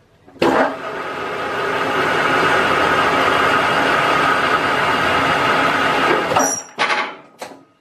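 Metal lathe starting suddenly about half a second in and running steadily through a finishing single-point threading pass on a high-tensile steel bolt. It stops abruptly a little after six seconds, followed by a couple of short clacks.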